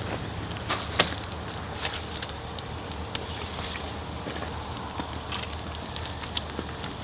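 Campfire crackling, with sharp pops scattered at irregular intervals, the loudest about a second in. The fire is burning wet wood.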